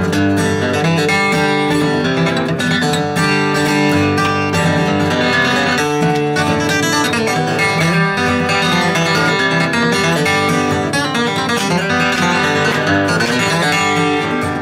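Background music without singing: an acoustic guitar instrumental, picked and strummed at a steady pace.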